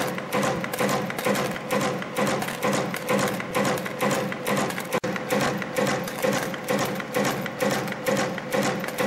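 YHM FB-210 CNC wire forming machine running in production, bending 1.3 mm wire: a rhythmic mechanical clatter about twice a second, one forming cycle per part at about 130 parts a minute, over a steady hum.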